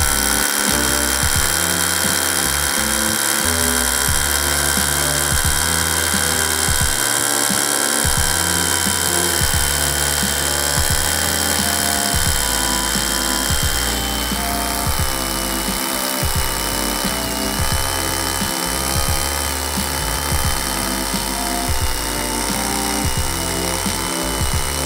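DeWALT DCH072 Xtreme 12V brushless SDS-Plus rotary hammer drilling continuously into concrete with a 3/8-inch carbide bit: a steady motor whine over the rapid hammering and grinding of the bit in the hole. The pitch sags slightly about halfway through as the bit goes deeper.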